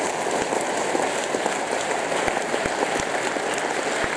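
A large audience applauding: dense, steady clapping of many hands.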